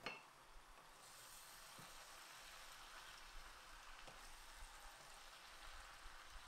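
Faint, steady sizzle of spinach cooking in a frying pan.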